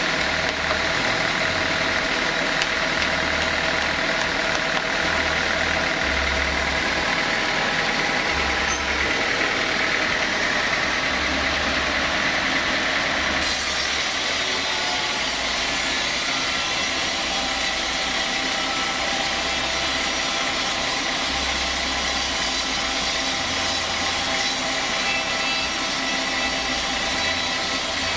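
Sawmill machinery running steadily with an engine-like hum made of several steady tones. No clear sawing into wood is heard.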